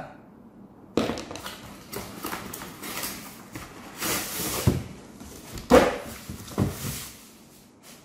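Cardboard box being handled and opened and a robot vacuum cleaner pulled out of it: rustling and scraping of cardboard and packing, with several sharp knocks in the second half.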